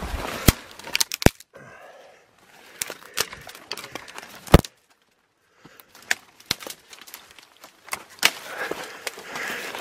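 Footsteps through dry leaf litter and undergrowth, with sharp cracks of twigs snapping underfoot, the loudest about four and a half seconds in, and a brief pause just after. Leaves and branches rustle as they brush past.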